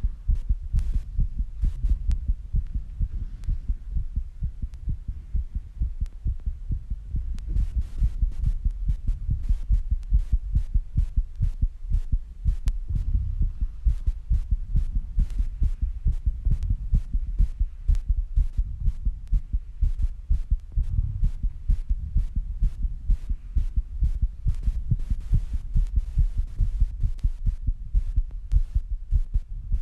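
A human heartbeat recorded close up, beating very fast after squats and rebreathing.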